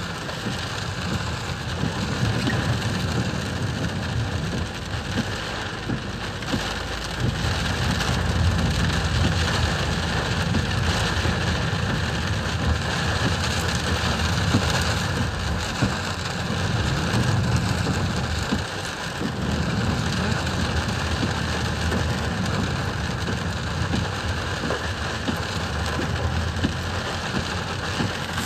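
Torrential rain drumming on a car's roof and windshield, heard from inside the cabin as a dense patter of drops, over a steady low rumble of the car driving through the wet road.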